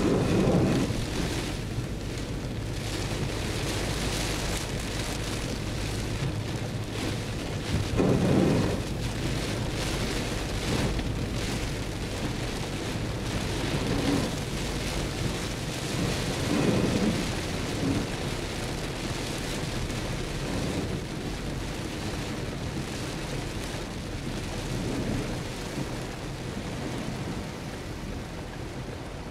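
Heavy rain beating on a car's windshield and roof, heard from inside the cabin, as a steady hiss. Several low rumbles rise over it, the loudest at the start and about eight seconds in.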